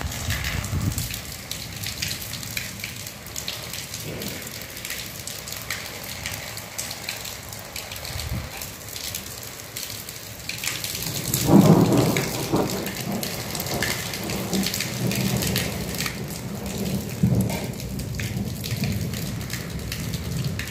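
Rain falling steadily, many small drops pattering, with a low rumble of thunder a little past halfway and a shorter one near the end.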